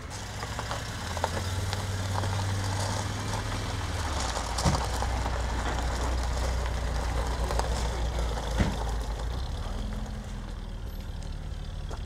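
A car engine running steadily at low revs; its pitch drops about four seconds in. Two short knocks stand out, one near the middle and one later on.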